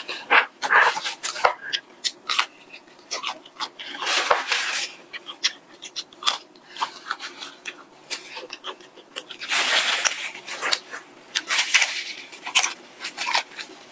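Close-up eating sounds of a spicy breaded fried chicken cutlet: the crisp coating crackling and crunching as it is bitten and chewed, with many short crackles and louder crunchy spells about four seconds in and again around ten seconds.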